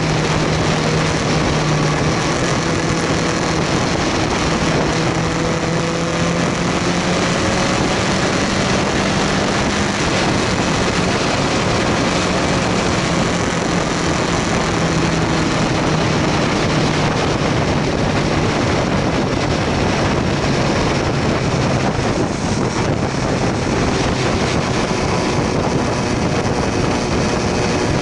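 BMW S1000R inline-four engine running at a steady cruise, its pitch drifting slowly up and down, under heavy wind rush on the microphone.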